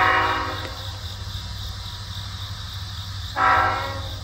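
Diesel locomotive's multi-chime air horn, sounded for the grade crossing: a long blast cuts off about half a second in, then a shorter blast comes about three and a half seconds in. A steady low rumble runs underneath.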